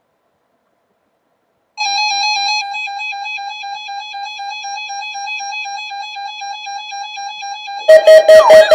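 Near silence, then about two seconds in a steady electronic tone with overtones starts, pulsing about four times a second. Near the end a much louder, siren-like sound with quick rising and falling sweeps cuts in.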